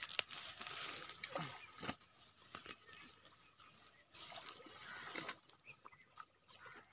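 Tall waterside grass rustling and crackling, with light splashing and sloshing of water as a landing net is worked at the water's edge.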